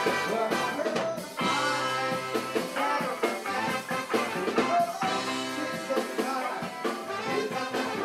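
Brass band playing an upbeat tune, with trombones among the horns.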